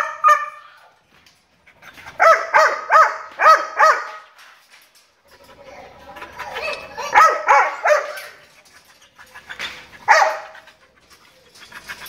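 A dog barking in quick runs of short barks, about three a second: a run of about five barks about two seconds in, another run around seven seconds, and two more barks near ten seconds.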